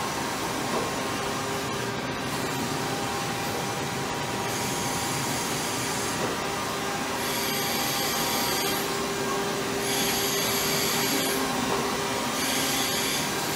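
Takisawa EX-110 CNC lathe and its shop surroundings running: a steady machine hum with a few held whining tones under a constant hiss. A brighter, higher hiss cuts in and out four times, each lasting a second or so.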